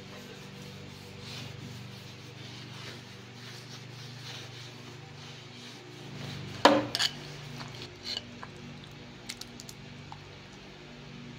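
A cloth rubbing softly over a steel griddle top, then a clatter of metal spoons against a glazed clay bowl: one sharp knock about two-thirds of the way through and a few lighter clinks after it. A low steady hum runs underneath.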